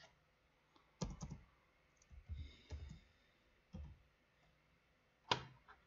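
Faint, sparse clicks of a computer keyboard being typed on, about half a dozen separate keystrokes, the sharpest about five seconds in.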